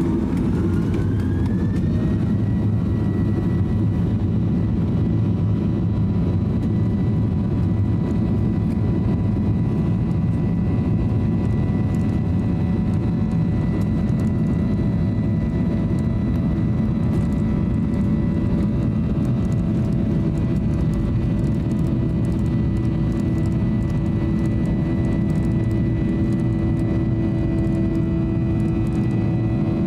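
Cabin noise of a Boeing 737-800 rolling on the ground: a steady rumble from its CFM56 engines with a whine that rises over the first two seconds and then holds steady. A low hum grows stronger in the last third, and faint ticks are scattered through it.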